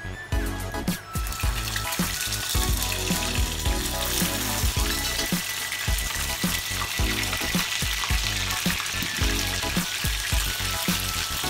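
Battered fried chicken pieces sizzling in hot oil in a stainless steel frying pan, the sizzle starting about a second in as they are tipped in and then holding steady. It is a second fry to make the chicken crispy.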